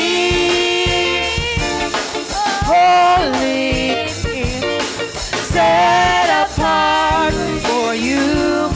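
Women's voices singing a gospel praise song together into microphones, with a live drum kit and band playing a steady beat.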